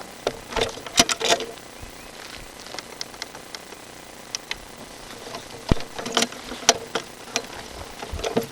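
Irregular clicks and knocks of drain-cleaning gear being worked at an open drain, over a faint steady hiss.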